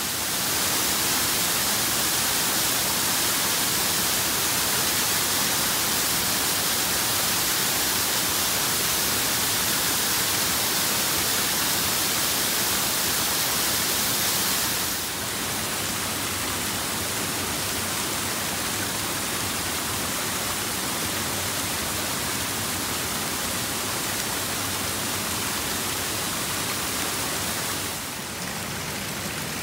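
Rushing river water, a steady full hiss. It drops a little in loudness about halfway through and again near the end.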